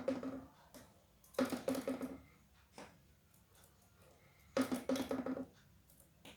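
A bird calling in three short bursts, each under a second, every burst a run of rapid pulsed pitched notes.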